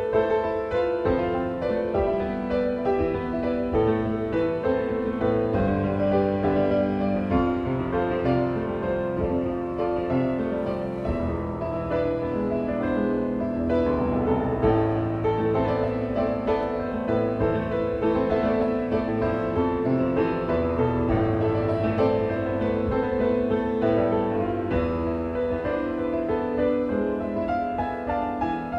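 Solo grand piano played continuously, a steady flow of notes over sustained chords.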